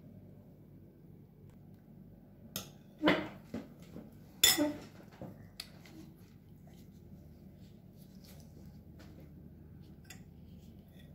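A metal spoon clinking and scraping against dishes and a steel baking pan. A short run of knocks comes about three seconds in, the two loudest about a second and a half apart, then a few faint ticks near the end.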